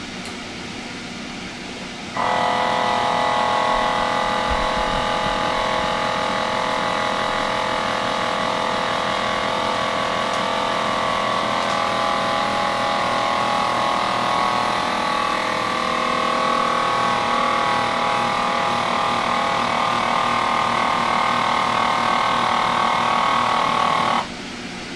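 FoodSaver vacuum sealer's pump starts about two seconds in and runs with a steady hum for about twenty-two seconds, drawing the air out of a bag for vacuum packing. It cuts off suddenly near the end as the bag is pulled tight.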